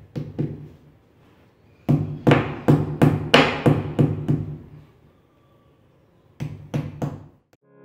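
Claw hammer driving green plastic wall anchors into drilled holes in a wall: three quick taps, then a run of about nine blows, then four more near the end.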